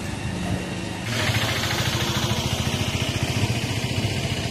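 A small engine running with a steady rapid firing pulse, getting louder about a second in.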